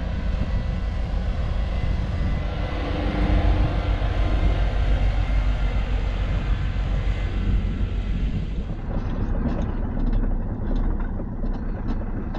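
A vehicle driving on a rough gravel track: a steady low engine and tyre rumble. From about nine seconds in there are scattered knocks and rattles.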